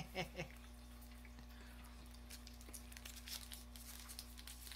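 The tail of a woman's laugh in the first half second, then faint crinkling of a chocolate wrapper being opened, a run of small crackles in the second half.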